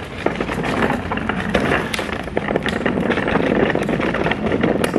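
Wheeled plastic utility cart being pulled over concrete, its wheels and metal handle rattling steadily.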